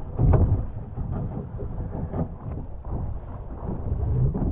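Wind buffeting the microphone in a gusty low rumble, with water rushing and slapping against the hull of a Sunfish sailboat under way.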